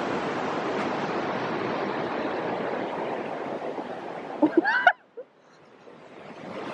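Steady rush of a river's flowing water. About four and a half seconds in there is a short high-pitched vocal sound, then the sound cuts out suddenly and slowly fades back in.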